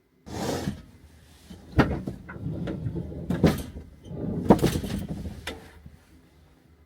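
A run of knocks and clatters, like things being handled, moved and set down or a cupboard or door being worked, starting suddenly just after the start and dying away about a second before the end.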